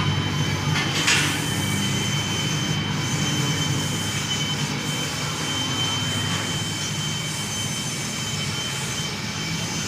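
Car engine running steadily with a constant high-pitched whine over its hum, the abnormal noise coming from the timing cover area; a single short knock about a second in.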